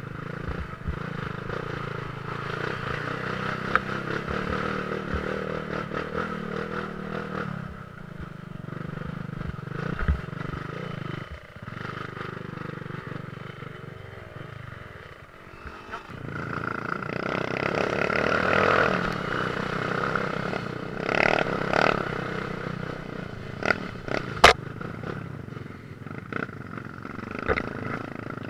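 Dirt bike engine running under the rider on a rough trail. It eases off around the middle, then pulls harder and louder for several seconds. Several sharp knocks and clatter come in the latter part.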